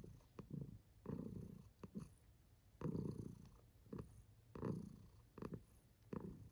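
Domestic cat purring close up, in steady swells a little under a second apart, as it is stroked on the head; a contented purr.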